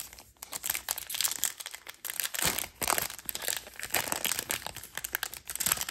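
Crinkling and crackling of a heat-sealed trading card pack wrapper as it is pulled and torn open by hand, in a rapid run of small crackles.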